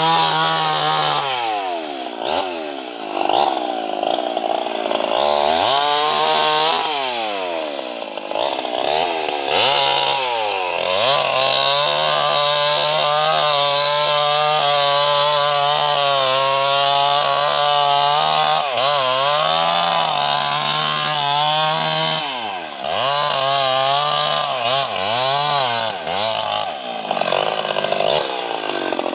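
Two-stroke chainsaw running at high revs, cutting mahogany wood. Its engine pitch drops and climbs back several times as the chain bogs and recovers under load, holding high and steady for several seconds in the middle.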